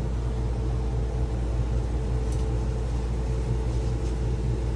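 Steady low mechanical hum with a fainter, higher steady tone above it, unchanging throughout.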